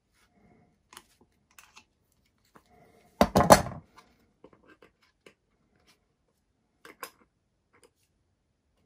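Light clicks and taps of small tools and parts being handled on a workbench, then about three seconds in a short loud metal clatter as a large pair of pliers is set down on the wooden bench. A few faint clicks follow.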